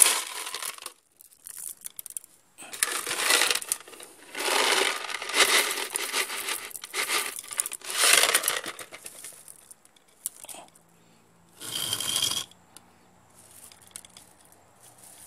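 Small white decorative pebbles poured by hand into a concrete plant pot, clinking and rattling against each other and onto the soil in several bursts, with a shorter burst near twelve seconds in.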